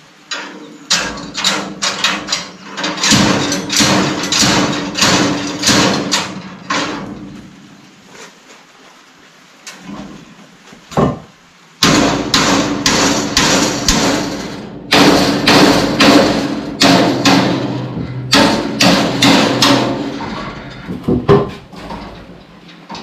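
Hammer blows on steel, about two a second, each with a short metallic ring. The blows stop for a few seconds about eight seconds in, then resume in a second series.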